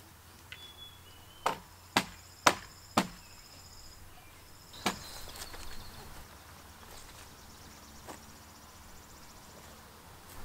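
Hammer blows on a wooden swing-set frame: four sharp strikes about half a second apart, then a single knock a couple of seconds later and a faint one near the end. High chirping from birds or insects sounds in the background.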